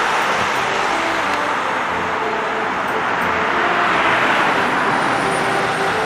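Isuzu Citiport city bus passing close by, its engine and tyre noise swelling to a peak about four seconds in over steady street traffic.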